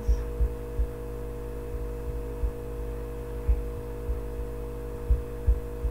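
Steady electrical hum with several overtones, with soft low thumps at uneven intervals.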